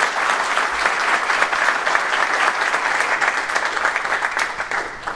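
Audience applauding, many hands clapping at once, the clapping fading away near the end.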